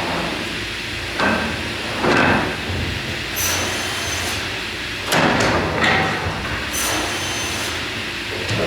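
Salvamac Salvapush 2000 optimising crosscut saw working through timber: a steady machine drone broken by a series of sharp, noisy cuts and knocks a second or two apart, with two longer high hissing bursts in between.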